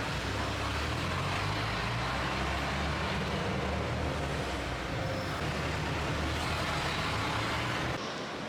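Steady road-vehicle noise: a continuous low engine-and-tyre rumble under an even hiss. The rumble drops away suddenly near the end.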